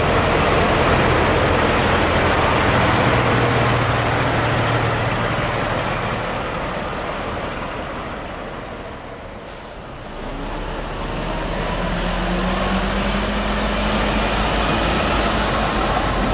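Heavy truck diesel engines driving slowly past, one after another. The first fades away, and about ten seconds in another truck approaches close by, its engine note rising as it pulls forward.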